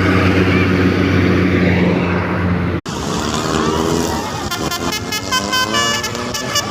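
A vehicle engine runs with a steady low hum. After a sudden cut about three seconds in, a telolet basuri multi-tone musical horn plays a fast melody of short, quickly changing notes.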